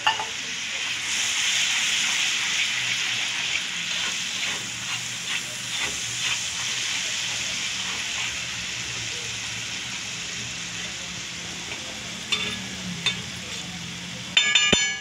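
Ginger-garlic and spice masala sizzling in hot oil on an iron tava, just after a spoonful of water has been added, while a steel spatula stirs and scrapes the pan. The sizzle is loudest in the first few seconds and slowly eases. Near the end comes a brief ringing clink.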